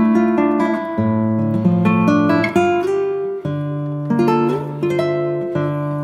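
Background music on acoustic guitar, plucked notes with a melody that changes every second or so.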